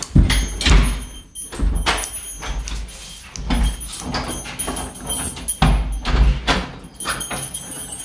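Knocks, clicks and rattles from a wooden door and its lever-handle lock being handled as a new lock is fitted. Several dull thuds against the door come at irregular moments.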